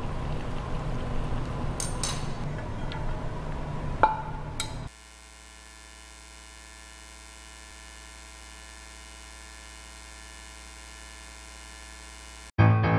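Kitchen room noise with a low rumble and two clinks of a utensil against a stainless steel pot, the second sharper, about two and four seconds in. After an abrupt cut, a steady electrical hum holds for most of the rest.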